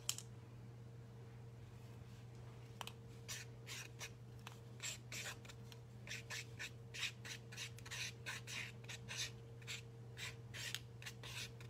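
Gold paint pen tip scratching across sketchbook paper in a quick run of short squiggly strokes, starting about three seconds in. A steady low hum runs underneath.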